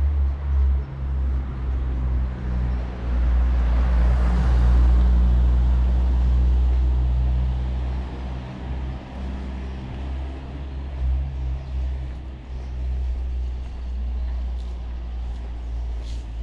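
A car passing close on the street, its engine and tyre noise swelling to a peak about four seconds in and then fading, over a steady low engine hum.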